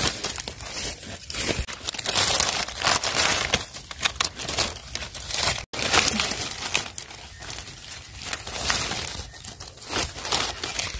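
Dry fallen leaves crackling and rustling as hands rake through the leaf litter and pull mushrooms from it, in a dense, uneven run of small crackles with a brief gap about halfway.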